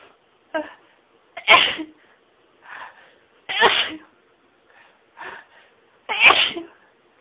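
A woman sneezing in a rapid fit: three loud sneezes about two seconds apart, with shorter, quieter sounds in between.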